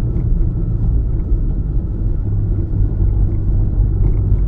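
Car tyres running over a steel grate bridge deck, a steady low rumble and hum heard from inside the car.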